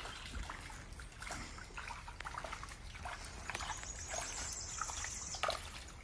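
Shallow muddy water trickling and lightly splashing as hands move through it, with small irregular wet clicks. A thin, high, steady buzz comes in just past the midpoint and lasts about two seconds.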